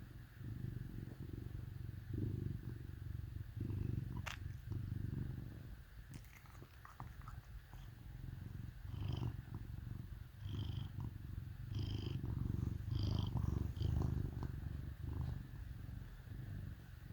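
A cat snoring: a low, purr-like rumble that swells and fades with each breath. A short sharp click about four seconds in.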